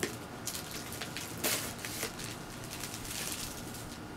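A printed cardboard product box being handled and opened, with the packaging rustling and crackling and a louder rustle about a second and a half in.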